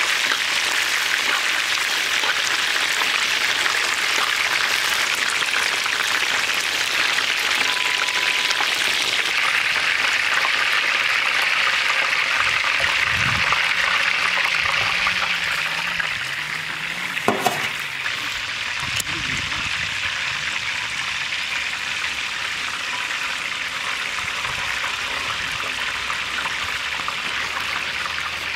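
Whole chickens deep-frying in a wide kadai of hot oil: a steady, dense sizzle. A single sharp knock comes a little past the middle.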